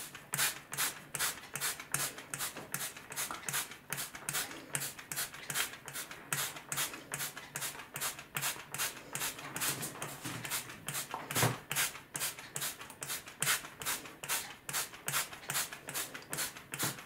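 Hand trigger spray bottle squirted over and over, about three squirts a second, each a short hiss of mist, wetting freshly sown seeds.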